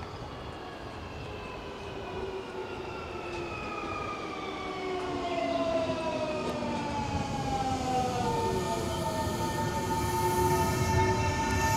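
Nankai 8300 series electric train pulling into a station, getting louder as it approaches. Its motor whine glides down in pitch as it slows. About two-thirds through, a steady high tone settles in.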